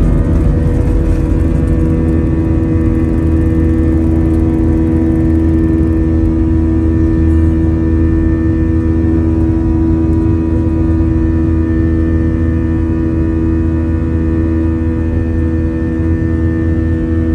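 Airbus A320 jet engines at takeoff thrust, heard from inside the cabin: a loud, steady drone with low rumble and several steady whining tones, running on through the end of the takeoff roll, liftoff and the initial climb.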